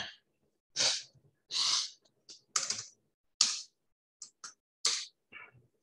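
Computer keyboard keystrokes and mouse clicks: a string of short, separate clicky bursts, roughly one a second, with a couple of very quick clicks near the end, as values are typed into the drawing software.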